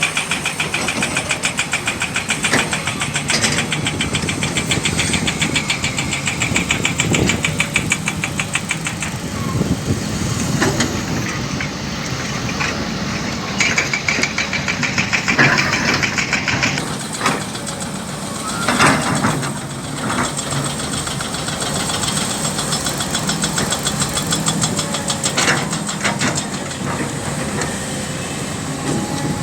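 Heavy diesel engines of an excavator loading a dump truck, running steadily with a fast, even clatter. A few louder knocks and scrapes stand out in the second half.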